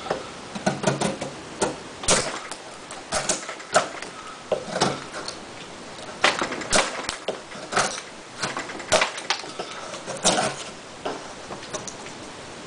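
Spyderco Tenacious folding knife with an 8Cr13MoV blade carving a wooden post by hand, each stroke a short sharp scraping cut as a shaving is pushed off. The cuts come irregularly, roughly two a second.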